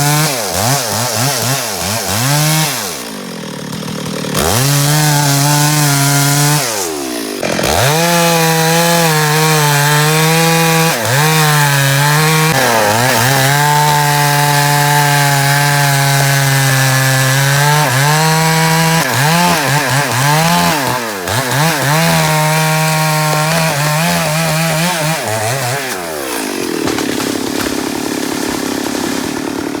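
Chainsaw running at high revs, cutting wood, its pitch rising and sagging repeatedly as the throttle is worked and the chain bites. The engine drops back briefly twice early on and falls to a lower, steadier sound near the end.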